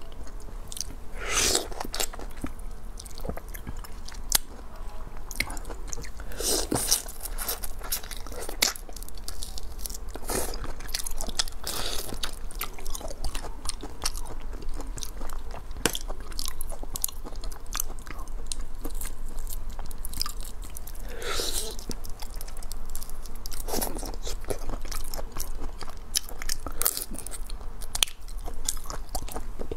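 Close-miked mukbang eating sounds: biting and chewing lemon-marinated raw shrimp, with crunching and many small wet clicks.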